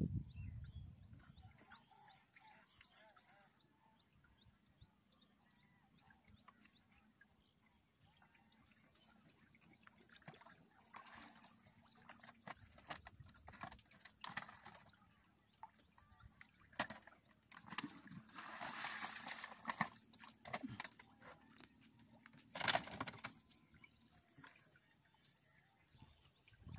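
Water being bailed out of a wooden boat with a tin can: faint, intermittent sloshing and splashes of poured water. There is a longer pour of about two seconds a little past the middle, and a sharp splash near the end.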